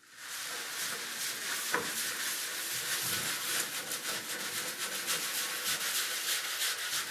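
Stiff-bristled scrub brush scrubbing a soapy painted tray in quick back-and-forth strokes, a steady bristly rasp, with one sharper click about two seconds in.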